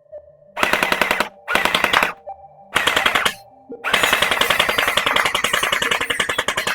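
QBZ-95 gel blaster firing on full auto into a chronograph, about eleven shots a second, in four bursts, the last and longest running close to three seconds.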